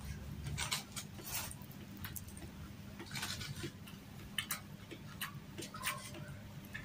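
Close-miked chewing with scattered soft mouth clicks and wet smacks at an irregular pace, over a faint steady low hum.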